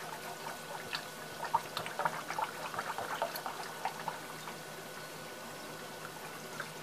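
Wire whisk stirring chicken gravy in a saucepan: quick wet clicks and slaps of the whisk through the liquid and against the pan. They are busiest for the first four seconds, then die down.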